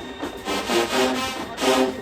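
HBCU marching band playing, its brass carrying a melody in short held notes.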